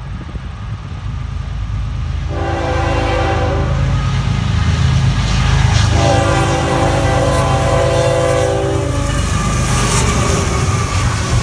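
Horn of a Norfolk Southern GE ES44AC diesel locomotive sounding for a grade crossing: a shorter blast about two seconds in, then a longer blast from about six to nine seconds in. It sounds over the low rumble of the diesel engines, which grows steadily louder. Near the end the two locomotives pass close by, with wheels clattering over the rails.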